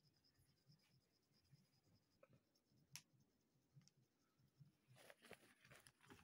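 Faint scratching of a graphite pencil shading on drawing paper, with a single click about three seconds in and a run of quick strokes near the end.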